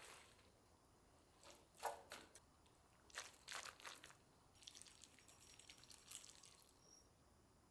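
Near silence with a few faint light taps and clicks, then a soft scratchy rustle.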